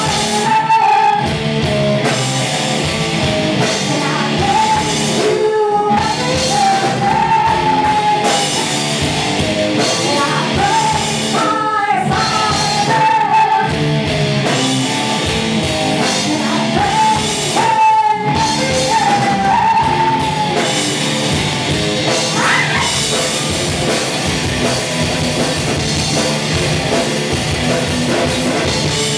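Rock band playing live, a woman singing over electric guitar and drum kit. The singing stops about two-thirds of the way through and the band plays on.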